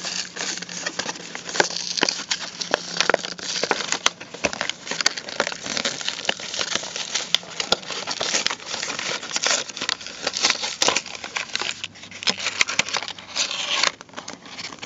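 Plastic packaging bag being handled and opened, crinkling and crackling continuously with many sharp clicks.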